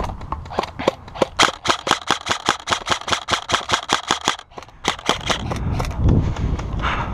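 Airsoft gun firing a rapid string of shots at about seven a second, sharp snapping clicks. A few scattered shots come before the string. It stops about four and a half seconds in, and a few more shots follow.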